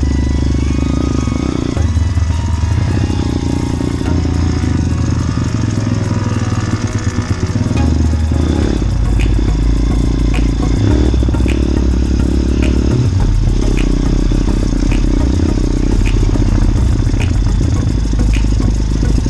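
Small motorbike engine running under way, its low note steady but shifting pitch a few times as the revs change, with a clear change about eight seconds in.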